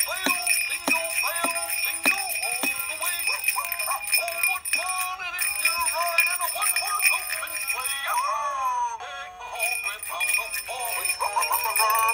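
Dandee animated plush dog Christmas stocking playing its built-in Christmas song, a sung melody with a jingling accompaniment.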